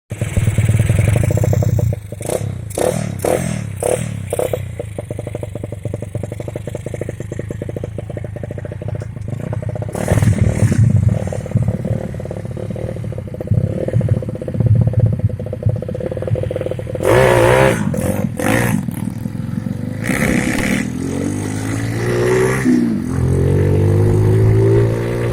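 Honda C70 motorcycle with an Astrea Grand single-cylinder four-stroke engine running while ridden, with some clattering knocks early on. The revs rise and fall several times in the second half as it accelerates.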